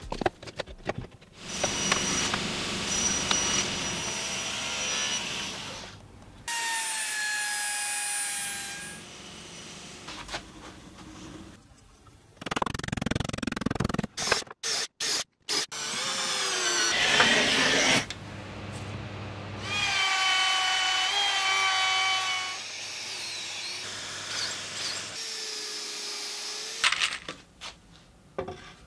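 Cordless drill drilling into plywood in several short runs, its motor whine sliding down in pitch each time the trigger is eased off.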